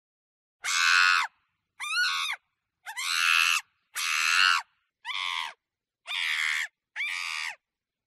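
Monkey screaming: seven short, harsh, high-pitched screams in a row, each about half a second long, with dead silence between them.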